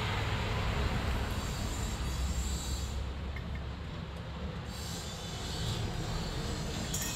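A steady low rumble in the background.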